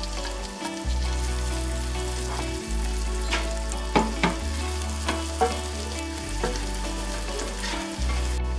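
Chopped red onions sizzling in hot oil in a frying pan, stirred with a spatula that clicks and scrapes against the pan a few times midway.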